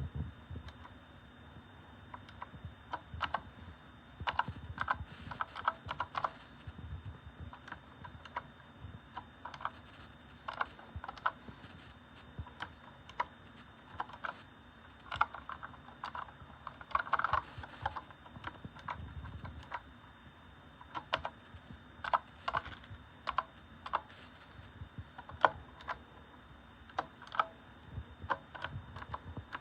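Typing on an RK Royal Kludge S108 mechanical keyboard with clicky blue switches and round typewriter-style keycaps: uneven runs of sharp key clicks with short pauses between them.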